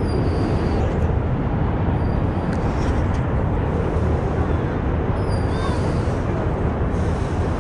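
Steady low rumble of city traffic and wind on the microphone, with a few faint clicks about three seconds in.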